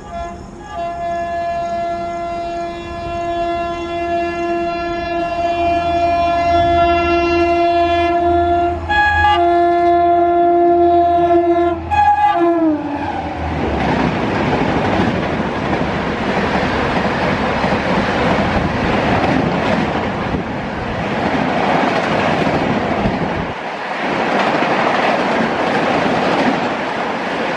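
Express train running through a station at about 130 km/h. The locomotive's horn sounds almost continuously for about twelve seconds, with two short breaks, and drops in pitch as the locomotive passes. It is followed by the loud rushing noise of the coaches speeding past.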